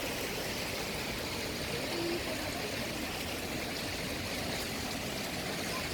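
Mountain stream water rushing steadily, an even wash of noise with no breaks.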